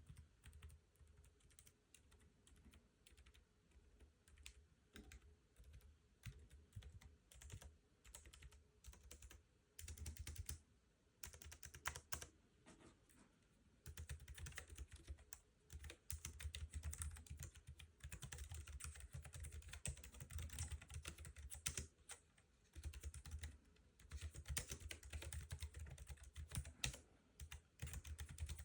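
Typing on a Keychron B1 slim wireless keyboard: quiet key clicks, sparse at first, then fast continuous runs from about halfway in, broken by a few short pauses.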